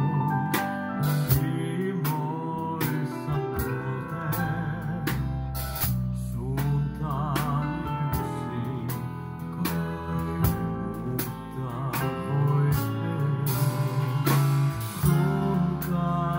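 Live band playing a Finnish-language song: a male singer holding notes with vibrato over electric bass, keyboards and a drum kit.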